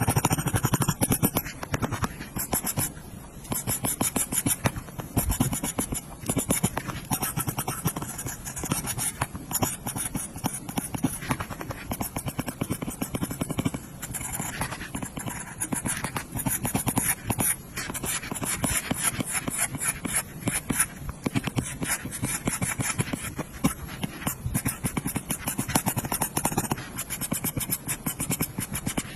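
Apple Pencil tip tapping and scratching rapidly on an iPad's glass screen in quick drawing and colouring strokes, a dense run of fine clicks.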